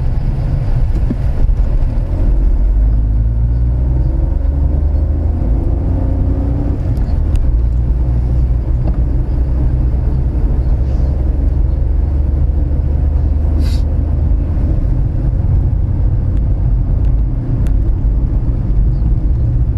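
Steady low rumble of a road vehicle's engine and tyres while driving, with one brief click about two-thirds of the way through.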